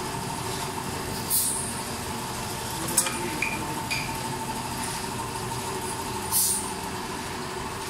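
Automatic four-head oil filling and capping machine running: a steady mechanical hum with a thin high whine. Two short hisses break in, about a second in and again near the end, and there are a few sharp clicks and small metallic clinks around the middle.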